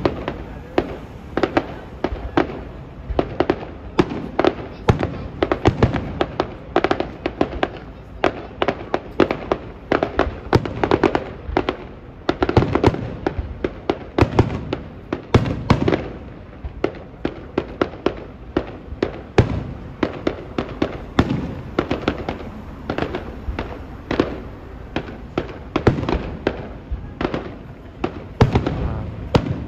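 Aerial firework shells bursting in quick succession: a steady barrage of sharp bangs and pops, several a second, over a continuous rumble.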